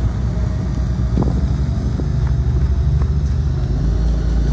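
Engine of the vehicle moving a portable storage building on wheels, running steadily with a low hum, with a few faint knocks.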